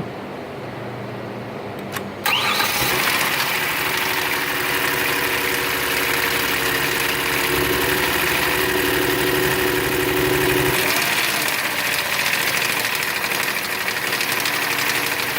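2014 Kia Cadenza's 3.3-litre V6 starting up about two seconds in, then running with a fast, even knocking rhythm, which the owner takes for engine knock. Its note changes about eleven seconds in.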